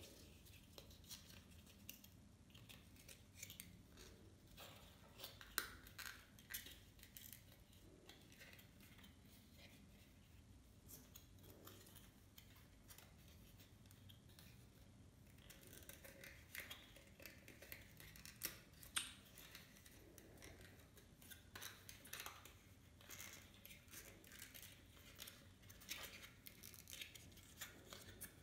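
Faint handling of printed foam-board puzzle pieces: irregular small clicks, scrapes and rubbing as the tabs are pushed into their slots, busier in the second half.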